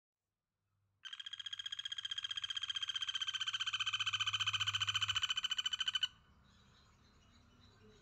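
A frog calling with a steady, rapid pulsed trill, about ten pulses a second, that starts about a second in and stops abruptly about five seconds later; faint bird chirps follow.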